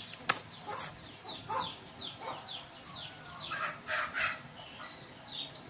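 Poultry calling: a string of short, high calls, each falling in pitch, several a second. Just after the start there is one sharp knock of a knife chopping fruit in a plastic basket.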